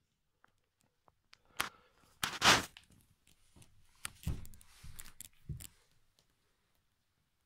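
Handling noise: scattered clicks, a loud burst of rustling, then rustles with a few soft thumps.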